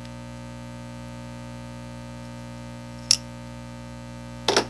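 Steady electrical mains hum, with a sharp click about three seconds in and a short knock near the end from handling the cardboard monitor box.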